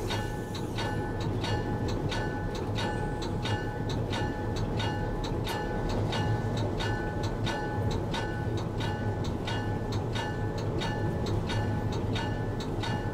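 Diesel locomotive heard from the cab, its engine running with a steady low hum, under a regular metallic ringing tick about three times a second.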